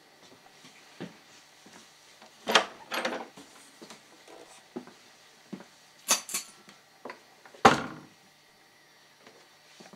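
A wooden closet door being opened and handled, making a few separate knocks and bumps; the sharpest knock comes near eight seconds in.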